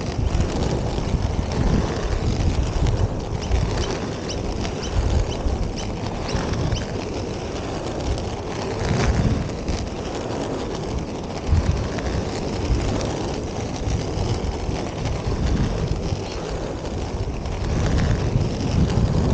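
Inline skate wheels rolling steadily over an asphalt path, with wind buffeting the microphone as an uneven low rumble throughout.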